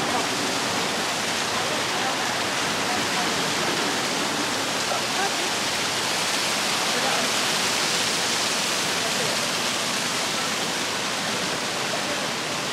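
Small waterfall spilling over a rock ledge, a steady rush of water.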